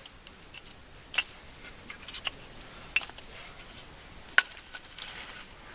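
Pieces of a handmade wooden mini table, a split log and a plank, knocking against each other as they are handled and laid on a campfire. There are three sharp wooden clacks, spaced a second or two apart, among lighter ticks.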